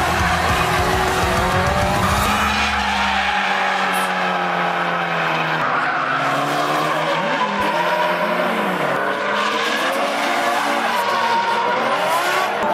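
Drift cars' engines revving up and down while their tyres squeal and skid as they slide sideways.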